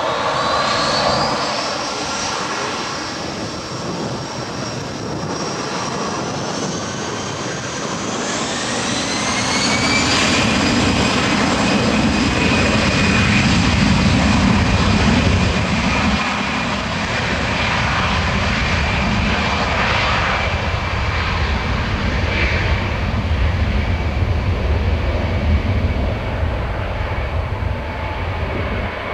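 Airbus A320-214's twin CFM56-5B turbofans spooling up to takeoff thrust. A whine rises at the start and again about nine seconds in, then holds steady over a growing low rumble as the jet accelerates down the runway.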